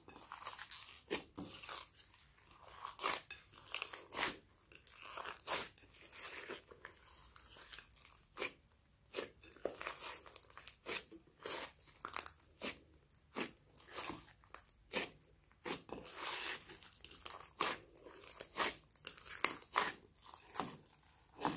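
Glossy slime mixed with foam beads being squished, pressed and stretched by hand: irregular sticky pops and crunches, several a second.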